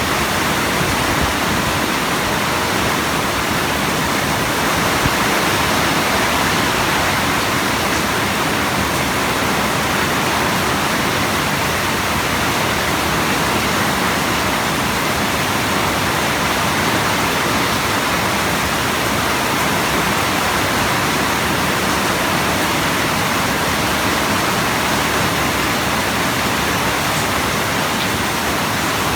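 Steady, heavy rainfall: a dense, even hiss of rain with no breaks or single drops standing out.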